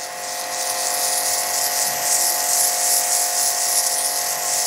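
Pressure washer running: the water jet from the spray gun hisses steadily as it blasts dirt off concrete, over the steady whine of the machine's motor and pump.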